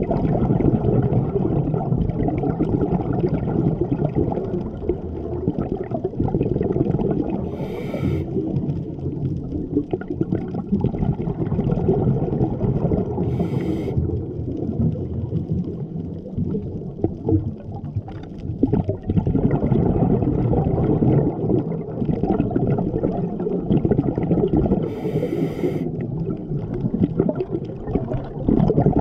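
A scuba diver breathing through a regulator, heard underwater through the camera housing. The exhaled bubbles make a steady, loud bubbling rumble, broken by three short hisses: about eight seconds in, about fourteen seconds in, and near the end.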